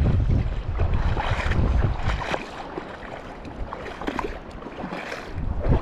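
Wind buffeting the microphone, heavy for the first two seconds, easing, then picking up again near the end. Over it come splashing steps through shallow water, about one a second.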